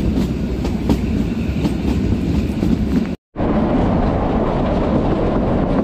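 Kalka–Shimla narrow-gauge toy train running on the rails: a steady rumble with a few sharp clicks of wheels over rail joints. The sound breaks off for an instant about three seconds in, then the same rumble carries on.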